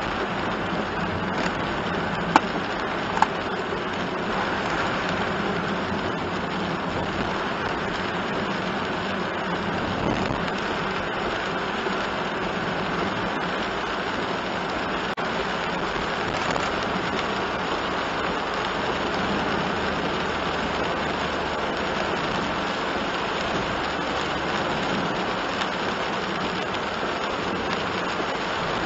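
Heavy rain on a moving kei van and its tyres hissing on the wet road, heard from inside the cabin as a steady rushing noise over a low hum. Two sharp clicks about two and three seconds in.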